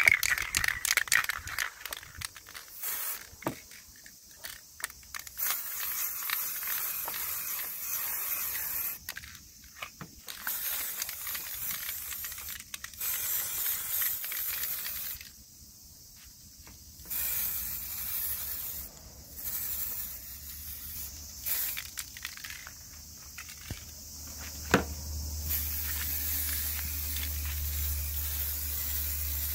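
Aerosol spray-paint can hissing in repeated bursts of a few seconds each, with short breaks between, as paint is laid onto a car body panel. Rattling at the very start, and a steady low hum comes in near the end.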